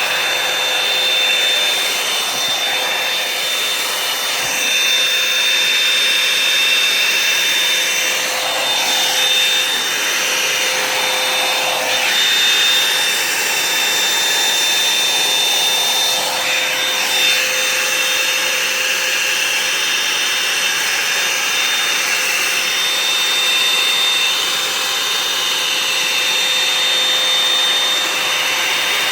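Revlon One-Step hair dryer brush running steadily: a loud blowing rush of air over a high, steady motor whine.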